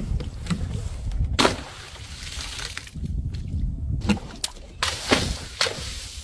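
Close-up handling of a bottle with liquid sloshing inside, with a low rumble and a series of sharp crackles and clicks, several close together near the end.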